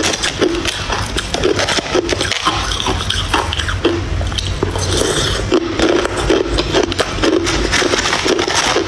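Ice cubes being crunched and chewed in a close series of crackling bites, with a metal spoon scraping among the ice in a plastic tub.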